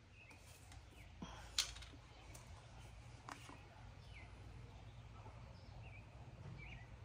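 Very quiet sound of engine oil being poured from a plastic jug into a funnel, with a few light clicks and knocks as the jug is handled, the sharpest about a second and a half in. Faint bird chirps are heard in the background.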